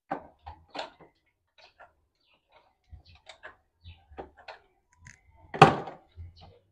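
Scattered metal clicks and light knocks as a generator engine is worked down into its steel frame, with one louder clatter about five and a half seconds in.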